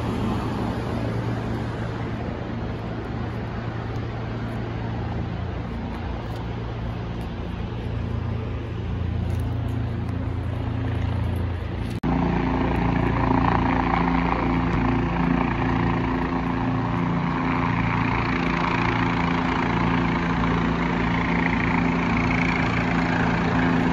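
City street traffic noise with a low engine hum. About halfway through, an abrupt cut brings a louder, steadier engine drone with a held pitch.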